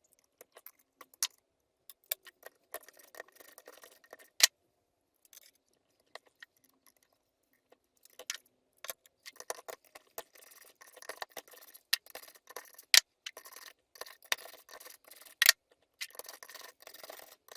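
Metal parts and hand tools clinking, clacking and scraping as a cylinder head is being stripped down, with several sharp, loud clacks among lighter clicks and scrapes.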